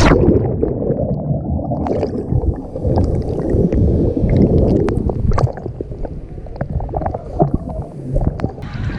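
Muffled underwater sea water sloshing and gurgling around a submerged camera, with scattered small clicks and pops of bubbles. The muffling lifts somewhat near the end.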